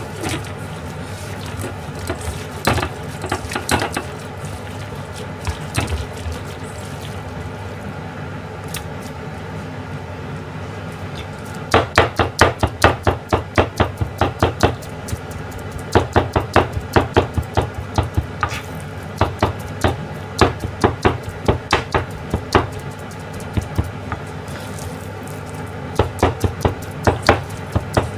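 Kitchen knife chopping and pounding ground meat on a plastic cutting board, which works the mince sticky for meatballs. After a few scattered knocks, from about twelve seconds in it comes in runs of fast strokes, about five a second.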